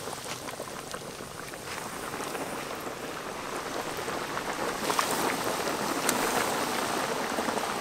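Noodle dough deep-frying in a large wok of hot oil: a steady sizzle and crackle of bubbling oil that grows a little louder past the middle, with a couple of sharper pops.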